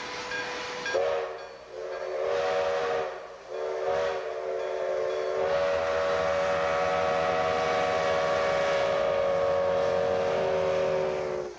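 Chime steam whistle of ex-Grand Trunk Western 2-8-2 Mikado steam locomotive 4070 sounding a chord of several notes: a few short blasts, then one long blast of about six seconds that sags slightly in pitch as it cuts off. The locomotive's running noise sounds under it as it comes past.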